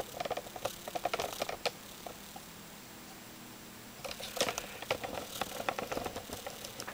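A run of quick, light clicks and taps, stopping for about two seconds in the middle and then starting again.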